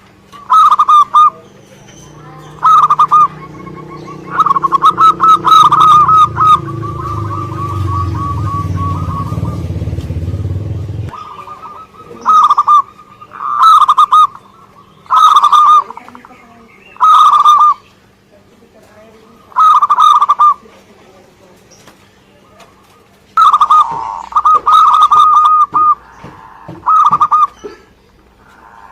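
Zebra dove (perkutut) singing: loud short phrases of rapid cooing notes repeated every second or two, with one longer run of quick notes lasting several seconds about four seconds in. A low rumble sits underneath during the first half.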